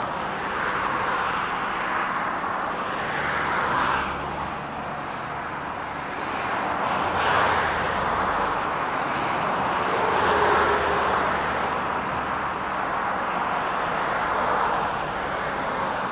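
Outdoor road traffic noise, a hiss that swells and fades every few seconds as vehicles pass.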